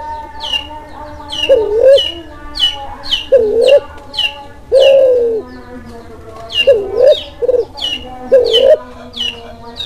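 Kelantan-type spotted dove in breeding condition cooing over and over, a low coo phrase every second or two, one of them longer about five seconds in. Rapid high chirps of other birds run alongside, about two a second.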